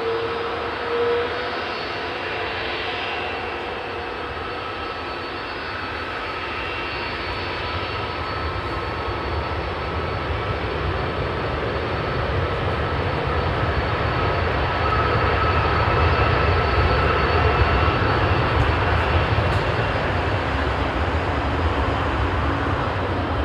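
Airbus A330-300's twin Pratt & Whitney PW4000 jet engines running at low taxi thrust, a steady low rumble with a thin whine over it, growing louder about two-thirds of the way through as the airliner turns toward and past the camera.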